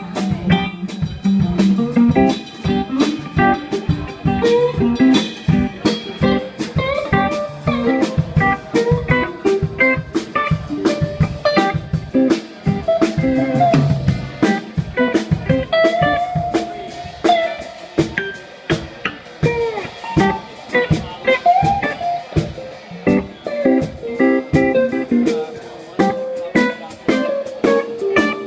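A small live band playing a bluesy instrumental: guitar lines over a drum kit and bass, with steady drum hits throughout.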